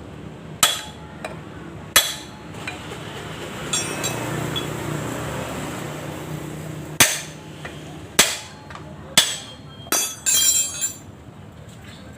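Metal tools and engine parts knocking and clinking, about seven sharp separate strikes and a quick rattle of small metal parts near the end.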